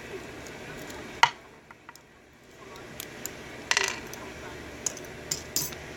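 Small metallic clicks and clinks of a Master Lock 911 padlock and small tools being handled while the lock is taken apart. There is one sharp click about a second in, then a cluster of clinks and a few lighter taps later.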